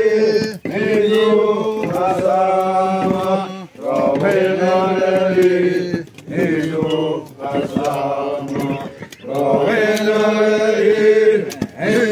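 Xerente ceremonial chant sung by men's voices in repeated phrases of two to three seconds, each trailing downward at its end, with brief breaks for breath between them.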